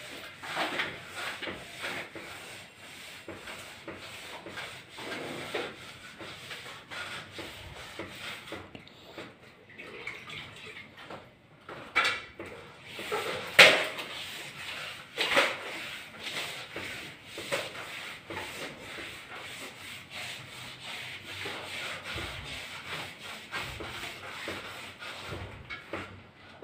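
Hands rubbing and scraping old wallpaper off a wall in continual scratchy strokes; the paper has been wetted to loosen it. Several louder, sharper scrapes come about halfway through.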